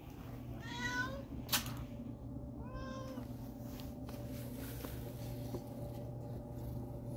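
An old domestic cat meowing twice, about a second in and again around three seconds in, the second call lower. A sharp click falls between them.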